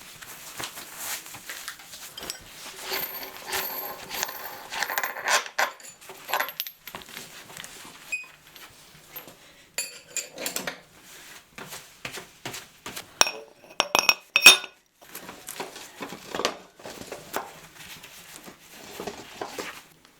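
Small metal objects clinking and rattling as they are handled: irregular clicks and clanks, some of them ringing briefly, with a cluster of louder ringing clinks about two thirds of the way through.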